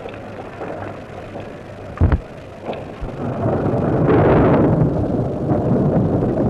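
Rumbling, crackling noise of a moving lava flow, with a sharp thump about two seconds in and a louder surge of rumble from about three seconds.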